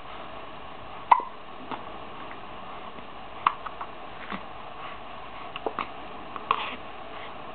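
Newborn baby hiccuping: short, sharp hiccups every couple of seconds, the loudest about a second in, with fainter small sounds in between.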